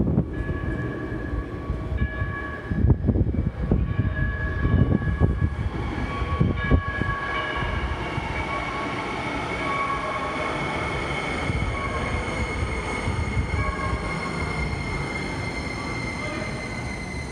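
Light-rail train pulling into an underground station: a continuous low rumble of the train on the rails, with steady high-pitched tones from the train over it.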